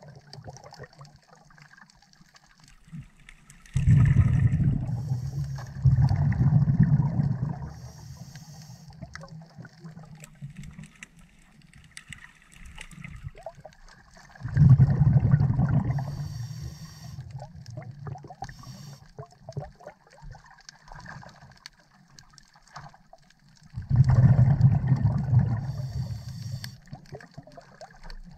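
Scuba regulator exhalations: bursts of exhaled air bubbling out beside the camera, each lasting a couple of seconds, about four seconds in, again near six, fifteen and twenty-four seconds.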